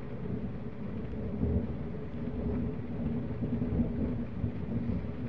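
Distant thunder rumbling: a low roll that swells over the first second or so and keeps rolling.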